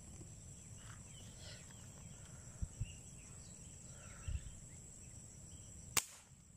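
A single sharp crack of a Manlapat airgun shot at tilapia in the water, about six seconds in; right after it the fish is called caught. A steady high insect buzz runs underneath, with a few low dull bumps before the shot.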